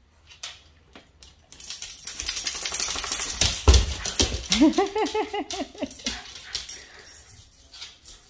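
Two dogs scuffling in play on a hard wooden floor: claws clicking and skidding, one heavy thump about three and a half seconds in, then one dog lets out a quick run of about seven short grumbling barks over a second and a half.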